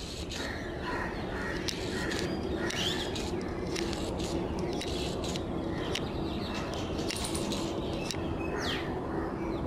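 Many birds chirping and calling in short, sharp notes scattered throughout, over a steady background noise with a faint low hum.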